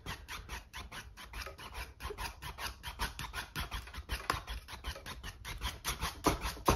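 Damp filbert brush scrubbing rapidly back and forth on stretched canvas, several short strokes a second, blending acrylic paint to soften the edges of clouds. One stroke near the end is louder.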